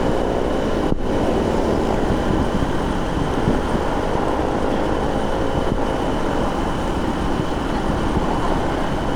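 Motorcycle being ridden along the road: a steady engine hum under continuous road noise.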